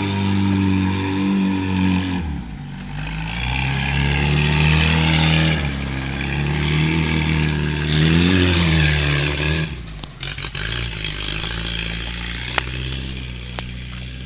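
Off-road cage buggy's engine running hard and changing revs as it drives: high revs at first, dropping about two seconds in, climbing again, a short rev up and down a little past the middle, then settling to lower, steadier running for the last few seconds.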